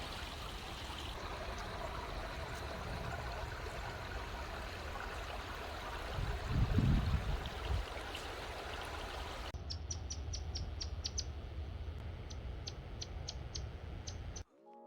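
Outdoor ambience: an even background noise with a low rumble swelling about six seconds in. After an abrupt change partway through, a run of short, high-pitched chirps comes first in a quick cluster, then spaced out.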